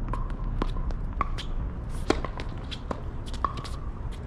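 Tennis shoes squeaking on a hard court during play: a series of short squeaks and sharp hits, the loudest hit about two seconds in, over a steady low rumble of wind on the microphone.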